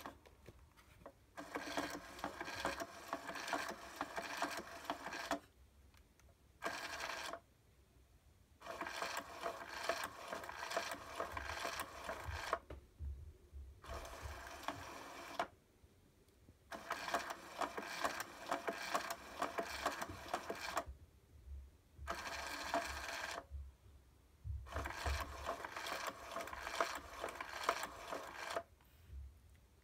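Small electric motor and gears of a FroliCat Pounce rotating cat toy whirring in stop-start bursts of one to four seconds as it drives the hidden feather wand around the disc.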